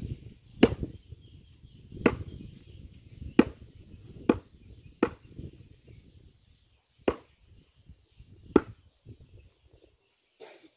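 Goat meat being chopped with a heavy blade: seven sharp chopping blows, irregularly spaced about one to two seconds apart.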